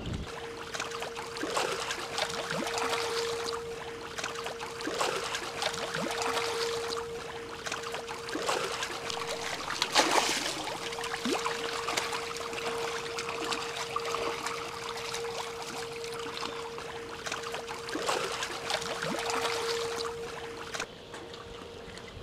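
Water rushing and splashing along the hull of a moving ship, in uneven swells with one louder splash about halfway through. A steady hum runs beneath it and stops near the end.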